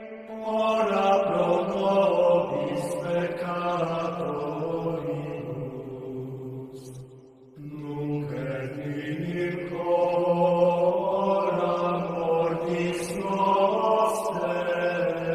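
Sung chant: long held notes that step up and down in pitch, breaking off briefly about seven seconds in and then going on.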